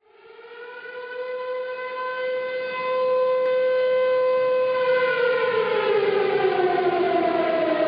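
Air-raid style siren sounding one steady note that swells up over the first few seconds, then slowly winds down in pitch from about halfway through.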